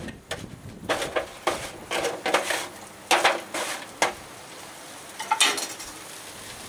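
Metal tongs clicking and scraping against an aluminium foil tray as roasted vegetables are lifted out, in a string of separate clinks and scrapes.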